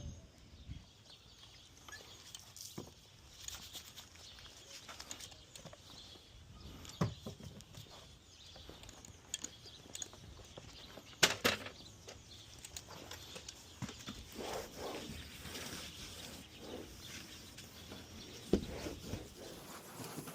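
Faint rustling of a rag being wiped over a garage door with mineral spirits, broken by scattered light knocks and clicks, the sharpest about eleven seconds in.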